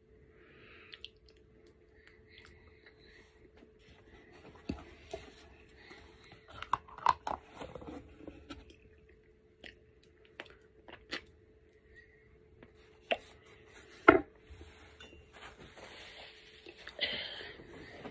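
Close-up eating sounds: chewing and wet mouth noises over spoonfuls of yogurt eaten with a metal spoon, broken by scattered sharp clicks and taps. The loudest click comes about fourteen seconds in.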